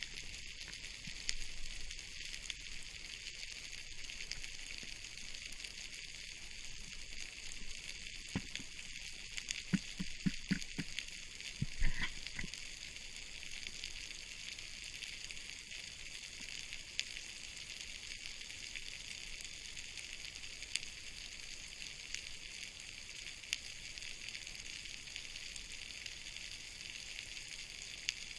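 Steady underwater crackling hiss, the ambient sea noise picked up by a camera while diving. A few low knocks come about a third of the way in.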